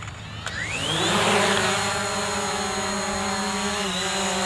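Hubsan Zino quadcopter's motors and propellers spinning up for takeoff: a rising whine about half a second in that settles into a steady buzzing hum as the drone lifts off and hovers, dipping slightly in pitch near the end.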